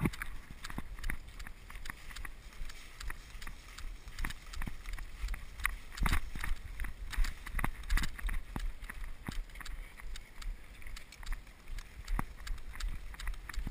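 Running footsteps through tall dry grass and brush, a quick uneven run of footfalls with vegetation brushing past, over a low rumble of wind on the body-worn microphone.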